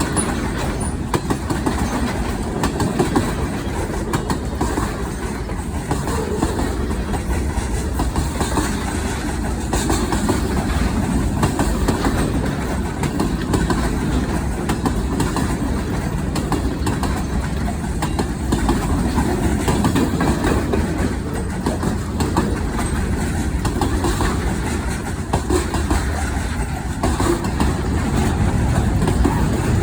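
Norfolk Southern freight train rolling past: a steady noise of railcar wheels on the rails, with a continuous run of fine clicks and no let-up.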